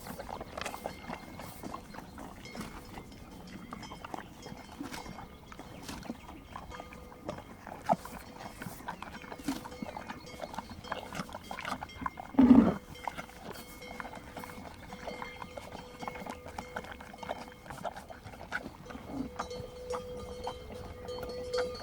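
Horses and donkeys licking a salt block: many small clicks and knocks. About halfway through, one of the animals gives one loud, short vocal sound.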